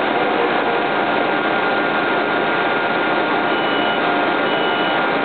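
Steady running noise of a train in motion, with three short, high beeps about a second apart near the end.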